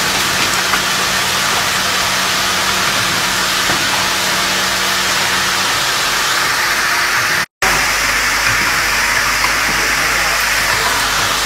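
Automatic ring-type spring clothespin assembling machine running: a loud, steady hissing din with a few faint clicks. The sound cuts out for a moment about seven and a half seconds in, then resumes with a low hum underneath.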